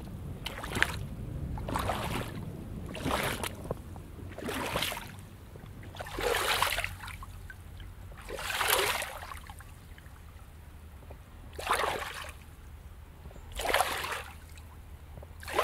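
Wellington boots wading through a shallow, stony river: a splash and slosh with each step, about one every one to two seconds, over the steady low rush of the flowing water.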